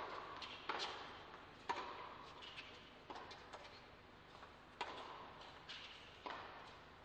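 Tennis ball struck back and forth by racquets in a rally on an indoor court: sharp pops about every second and a half, with a few softer ones between, each trailing a short echo.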